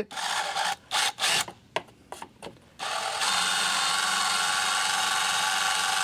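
Cordless drill backing out a rusted screw that isn't gripping anything: a few short bursts on the trigger, then running steadily for the last three seconds or so.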